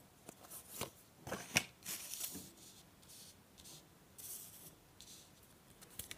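Oracle cards being shuffled and handled: a series of light, crisp card flicks and slides, then a card laid down on the table.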